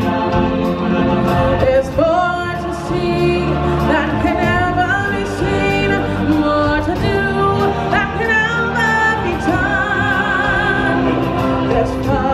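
Stage-show music with singing: voices sing a melody with some long held notes over a full band backing.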